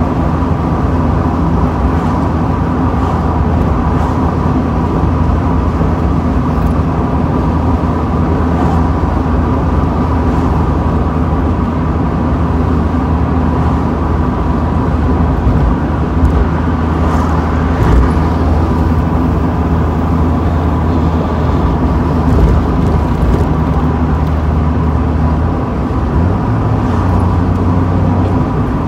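Mazda Miata's four-cylinder engine running steadily at cruising speed, with road and wind noise coming into the open-top cabin. The engine note steps up near the end.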